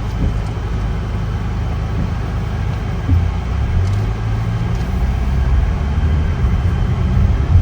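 Steady low rumble of a car on the move: engine and road noise heard from inside the cabin.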